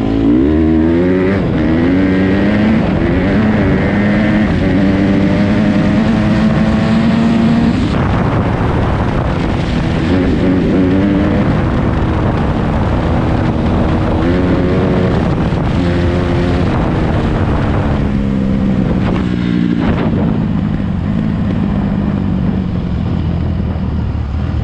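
Honda CRF150RB's 150cc four-stroke single-cylinder dirt-bike engine running under load while being ridden. Its pitch climbs in the first couple of seconds, holds, then rises and falls several times with the throttle.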